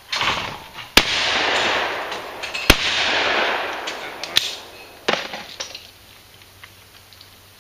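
Two shotgun shots from a break-action shotgun, about a second and a half apart, each with a long echo. A little after four seconds in come two lighter sharp clicks as the action is opened.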